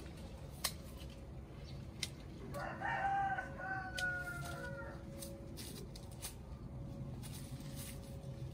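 A rooster crowing once, a single long call of about two seconds starting a little before the middle. A few sharp clicks come before and at the start of it.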